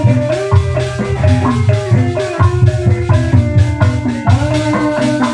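Loud amplified live band music: a kendang drum played with swooping, pitch-bending strokes over a bass line from a guitar, with a melody line above.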